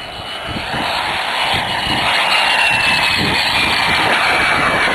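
Miniature turbine engine of a radio-controlled A-10 model jet in flight: a rushing jet noise that swells about a second in as the plane comes closer. Over it is a real high-pitched whine that slowly drops in pitch as the jet passes.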